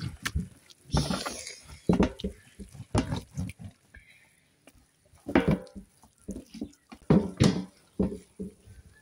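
Wet squelching and slapping of hands working thick masala paste over and into a raw whole goat carcass, in irregular bursts with short pauses between them.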